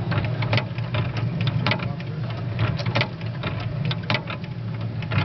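Mechanical display of 1920s–1930s Anri carved wooden figures running: a steady low motor hum with irregular clicks and taps from the moving figures and their mechanism.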